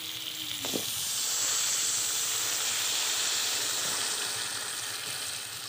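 Water poured into a hot kadai of spice paste frying in oil, setting off a hiss and sizzle that swells about a second in and slowly eases off.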